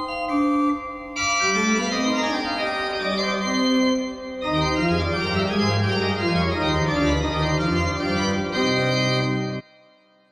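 Church organ playing slow, sustained chords as offertory music, with a deep bass line coming in about four and a half seconds in. The music stops suddenly near the end, leaving a brief fading echo.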